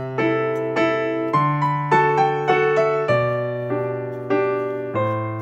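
Background piano music: a melody of single struck notes, a few a second, each fading away, over lower bass notes that change every second or so.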